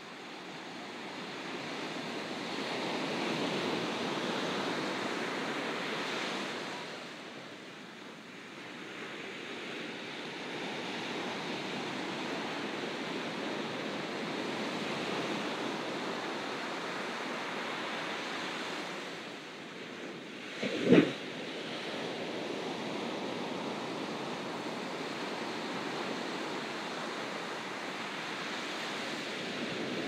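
Ocean surf rushing onto the beach as a steady wash of noise, swelling a few seconds in and easing before settling again. A single brief, loud thump comes about two-thirds of the way through.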